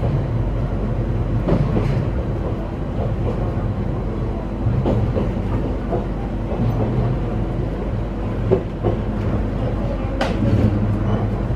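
Aoimori Railway train heard from inside the carriage while running: a steady low rumble of wheels on rail, with a few sharp clicks and knocks now and then.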